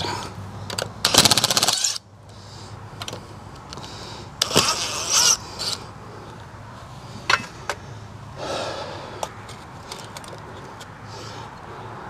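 Cordless drill-driver runs for about a second, backing out screws from the box, and stops sharply. After that come scattered metal clicks and clinks and short scrapes as the conduit fitting and box are worked by hand.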